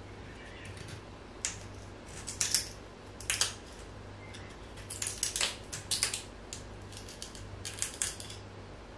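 A kitchen utensil cutting and scraping a crisp black radish, in short, sharp, irregular strokes with a crunch to them.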